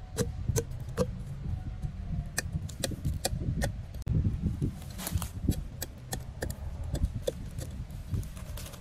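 A heavy cleaver-style knife chopping and scraping into tree bark: a series of irregular sharp knocks, a few each second, as a slit is cut in the trunk.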